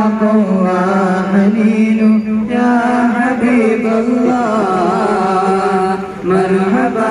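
Male voice chanting an Islamic devotional melody in long, wavering held notes, with a brief break about six seconds in.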